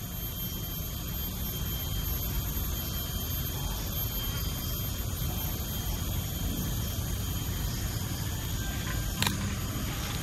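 Steady low rumble of outdoor background with a faint steady high tone once the handpan has stopped ringing. A single sharp knock about nine seconds in as the handpan is lifted and handled.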